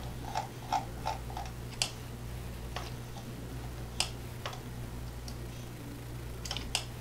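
Computer mouse clicking: a quick run of four clicks in the first second and a half, then scattered single clicks, over a steady low electrical hum.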